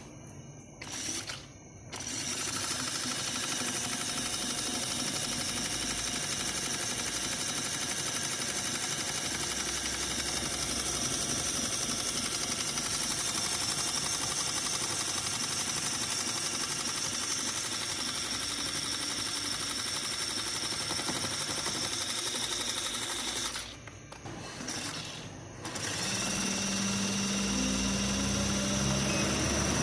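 Toy mini washing machine's small electric motor running steadily with a whine. Near the end it stops briefly, then starts again with a lower steady hum.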